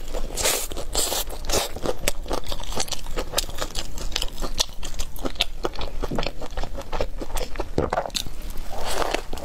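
Close-up crunchy biting and chewing of a loaded shouzhuabing, a flaky Chinese hand-grabbed pancake wrap, giving a dense run of crisp crackles. There are a few bigger bites about half a second in, around a second and a half in, and near the end.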